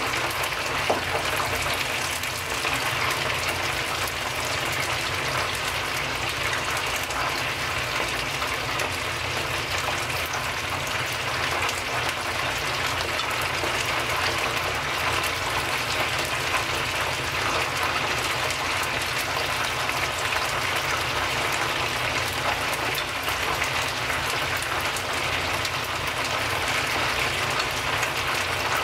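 Karaage chicken deep-frying in a pan of hot oil, a steady dense crackling sizzle of bubbling oil.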